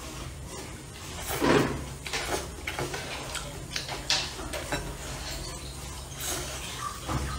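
Close-up eating sounds: chopsticks clicking and scraping against a ceramic bowl of stir-fried rice noodles, with slurping and chewing. There is a louder sound about a second and a half in, and a low steady hum underneath.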